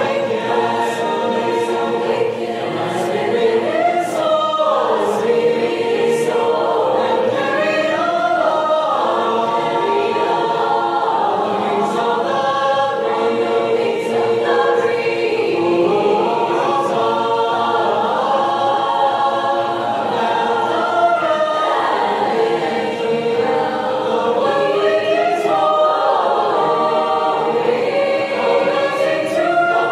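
Mixed choir singing a cappella in six parts. The basses repeat a rhythmic 'dm dm' syllable pattern beneath the sung words of the upper voices.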